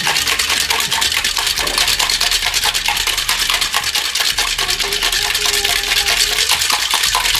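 Ice rattling inside a stainless steel cocktail shaker that is shaken fast and without a pause, chilling and mixing the drink.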